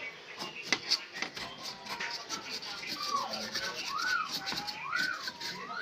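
A brush scrubbing dust off a TV's circuit board in quick, repeated scratchy strokes. In the second half a wavering tone rises and falls about once a second.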